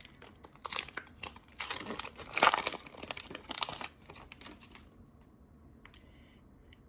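Plastic wrapper of a trading-card pack being torn open and crinkled, in a run of rustling bursts over about four seconds, loudest around the middle. It then goes quiet except for a couple of faint clicks.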